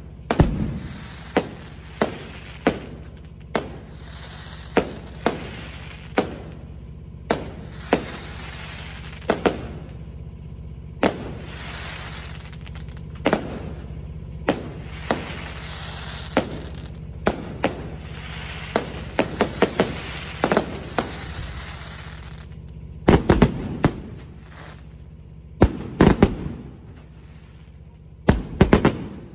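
Aerial fireworks shells bursting overhead: a regular run of single sharp bangs less than a second apart, then louder clusters of rapid bangs in the last several seconds.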